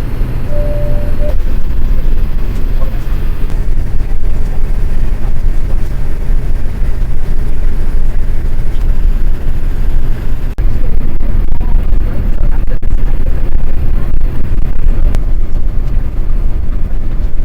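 Boeing 787-9 airliner heard from the cabin during landing: a loud, steady low rumble of engines and rushing air, with a few faint knocks in the second half.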